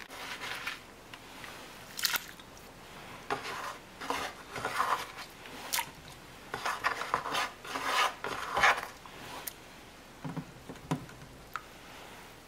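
Kitchen food preparation: scattered, irregular knocks, clinks and short scrapes of utensils and dishes on a counter, with a couple of duller, lower knocks a little after ten seconds in.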